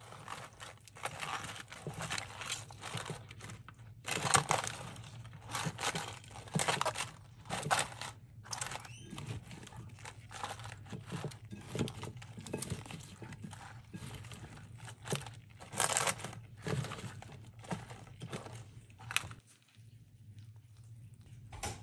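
Lettuce leaves, cucumber and red onion tossed with tongs in a glass bowl: irregular rustling and crunching of the leaves, which stops a little before the end.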